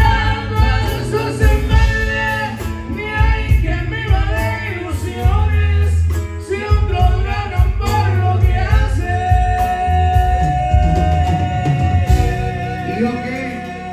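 Live band music with a man singing over a heavy bass line; about two-thirds of the way in he holds one long note, and the music gets quieter near the end.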